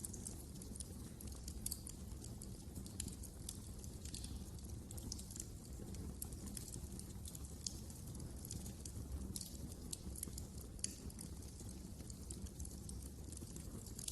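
Wood fire crackling in a fireplace: irregular small sharp snaps and pops over a steady low rumble.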